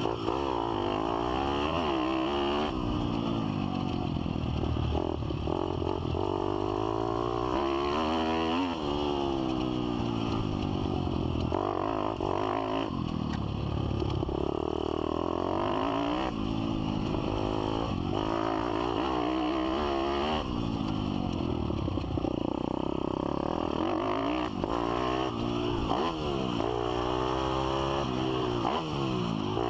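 Pit bike's single-cylinder four-stroke engine under hard riding, its pitch climbing and dropping back again and again as the throttle is opened and closed and gears are changed.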